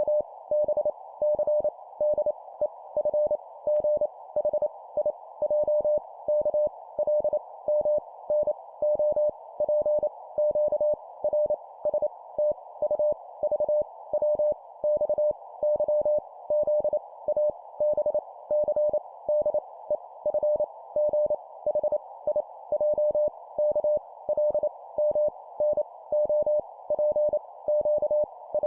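Morse code at 25 words per minute: random letters sent as a single mid-pitched tone keyed on and off in quick dots and dashes, with short gaps between letters, over a steady hiss.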